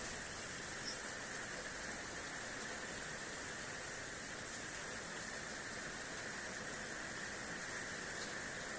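Heavy rain pouring down in a steady downpour, a constant even hiss.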